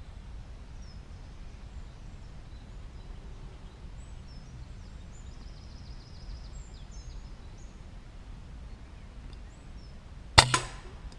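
A single shot from a Walther Rotex RM8, a regulated .22 pre-charged air rifle, near the end: one sharp crack with a short ring, followed a fraction of a second later by a smaller knock. Faint bird chirps sound in the woodland background before it.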